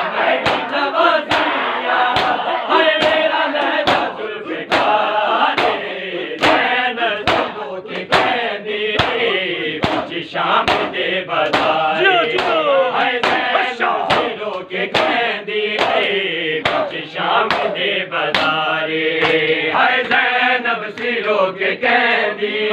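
Men's voices chanting a noha in unison, with a steady beat of sharp slaps from mourners striking their bare chests (matam) in time with the chant.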